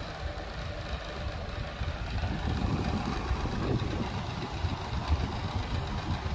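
McGraw Edison model 124004 12-inch three-speed box fan running on medium, with a low, uneven rumble and some vibration. It gets a little louder about two seconds in.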